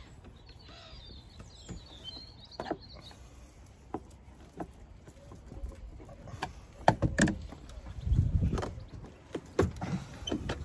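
Plastic clips and air intake ducting on a Mercedes Vito's air box being worked loose by hand: scattered clicks and knocks, denser in the second half, with a low muffled bump about eight seconds in. Faint bird chirps early on.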